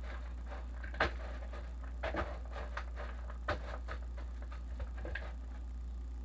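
Potato masher mashing bananas by hand in a bowl: irregular squelching knocks as the masher pushes through the fruit and hits the bottom of the bowl, thinning out near the end. Under it runs a steady low hum.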